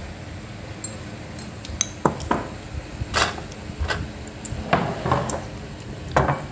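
Several light clinks and knocks of dishes and cutlery on a meal table, spaced irregularly, the sharpest about three seconds in.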